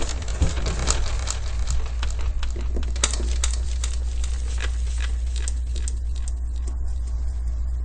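Items being handled and put away: a quick run of light clicks and knocks that thin out after about six seconds, over a steady low rumble.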